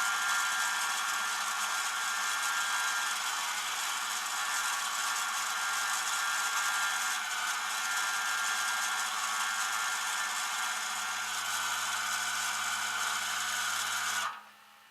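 A small high-speed motor whirring steadily, then cutting off suddenly near the end.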